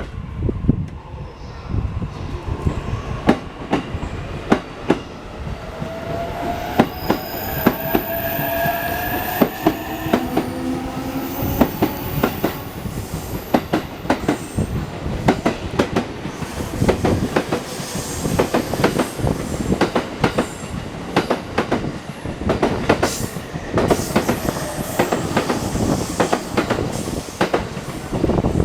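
E233 and E231 series electric multiple-unit train pulling out and accelerating: the inverter-driven traction motors whine in rising tones through the first half, while the wheels clatter over rail joints with many sharp clicks that grow denser as the train gathers speed, with a thin high wheel squeal in the middle.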